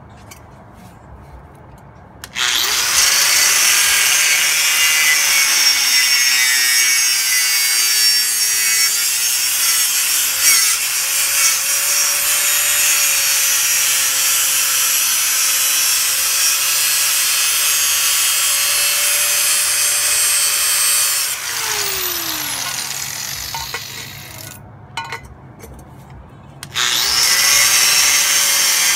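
A power tool cutting metal turbo piping. It runs steadily for about nineteen seconds, then winds down with a falling whine, and starts up again near the end.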